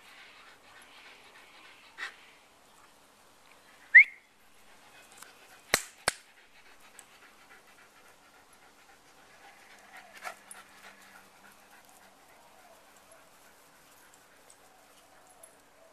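Dogs panting, with a single short high yelp about four seconds in, the loudest sound, then two sharp clicks close together about two seconds later.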